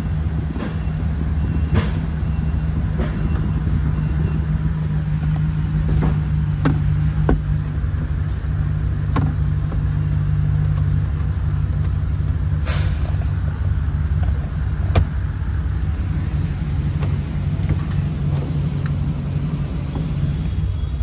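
A 2012 GMC Sierra 1500's 5.3-litre V8 idling steadily, with scattered clicks and taps from hands working the cab controls and trim.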